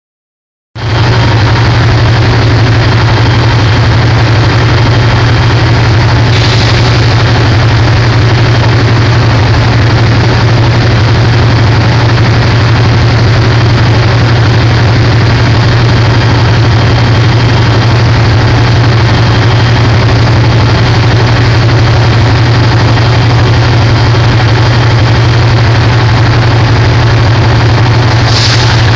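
EMD F40 diesel locomotive running steadily while standing at the platform, with a deep steady hum. Two short hisses come about six seconds in and again near the end.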